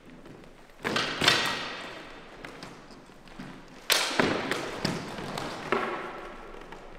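Steel feders (two-handed training swords) clashing in two flurries, about a second in and again around four seconds in. Each flurry opens with a sharp strike, is followed by a few lighter hits, and leaves a metallic ring.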